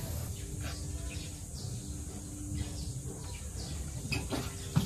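Quiet outdoor background with a faint steady hum, then a few light knocks and clatters near the end as the road bike is handled and lifted.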